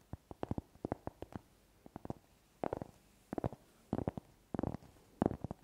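Fingers and fingernails tapping quickly on a round cork board close to the microphones, in short rapid runs of taps with a pause of about a second early on.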